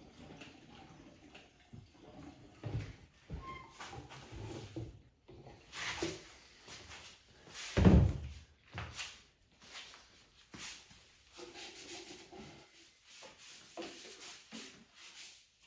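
Scattered clicks, knocks and clatter of tools and parts being handled during small-engine work, with one loud thump about eight seconds in.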